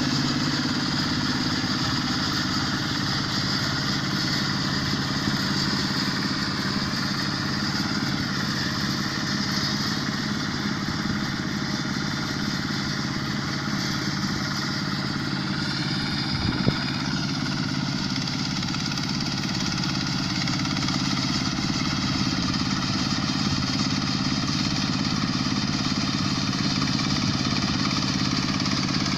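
Quick H-140R combine harvester's Kubota diesel engine running steadily with its machinery, with a single sharp click about two-thirds of the way through.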